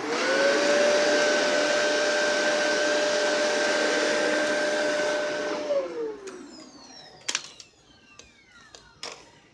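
Shark Rotator Powered Lift-Away vacuum in canister mode, its motor and powered brush roll spinning up and running on carpet with a steady whine for about five seconds. It is then switched off and winds down with a falling whine, followed by a sharp click.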